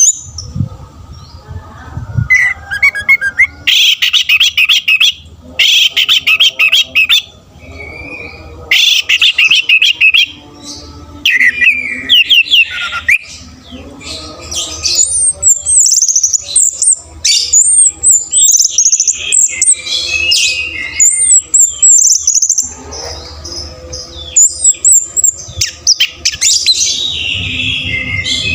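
Orange-headed thrush singing a long, varied song: fast rattling trills and chirps, then clear high whistled phrases sliding up and down, with short breaks between phrases.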